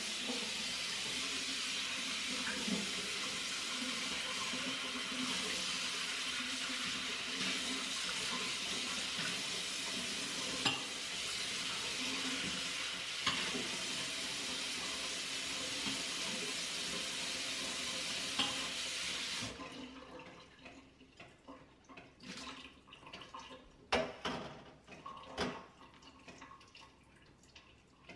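Kitchen tap running steadily into a stainless steel sink while a bowl is washed, with a few light clinks. The water shuts off abruptly about two-thirds of the way through, followed by scattered clinks and knocks of the bowl and dishes being handled.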